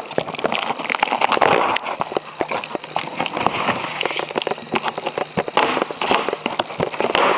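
Cardboard shipping box being opened and handled: a dense, irregular run of crackles, scrapes and rustles from the cardboard and its packaging.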